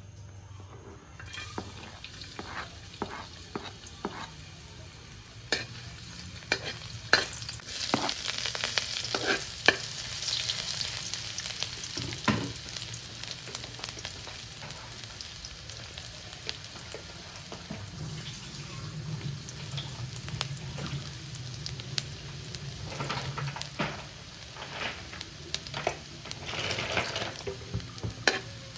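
Chopped garlic sizzling in hot oil in a steel wok, the frying hiss starting about a second in as it drops into the pan. A metal spoon scrapes and clicks against the wok as it is stirred.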